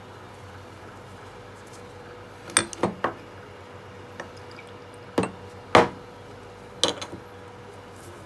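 Glass bottle clinking and knocking against a porcelain cup as liquid is poured from it: a handful of sharp clinks in three short groups, over a faint steady hum.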